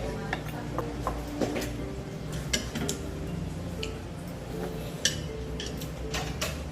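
Spoon and chopsticks clinking and tapping against a bowl during eating: scattered light clicks at irregular intervals, the sharpest about two and a half and five seconds in.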